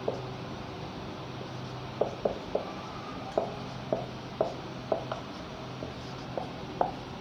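Marker pen tapping and stroking on a whiteboard as words are written: about a dozen short, sharp strokes from about two seconds in, over a steady low hum.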